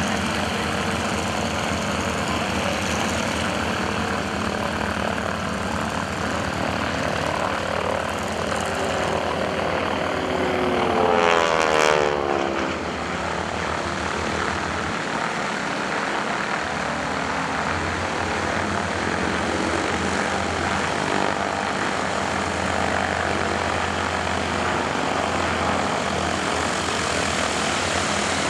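North American SNJ-5 Texan's nine-cylinder Pratt & Whitney R-1340 radial engine and propeller running steadily through aerobatic manoeuvres. About 11 seconds in it swells to its loudest and its pitch drops sharply as the plane passes close.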